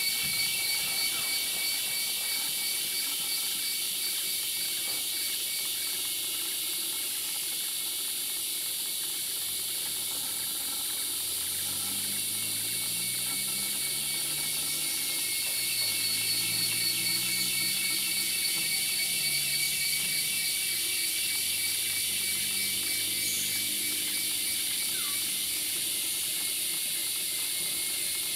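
Rainforest insect chorus: a steady, high-pitched, fast-pulsing buzz that does not let up. A faint low drone that steps in pitch sits underneath through the middle.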